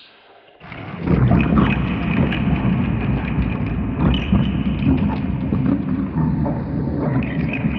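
A distorted horror sound effect: a dense, rough rumbling noise full of crackle, starting suddenly about half a second in and running on loudly.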